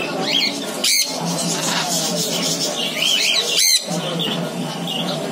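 Parrots at a bird show screeching: two loud, shrill calls, about a second in and again near the middle, over the steady chirping of many caged birds.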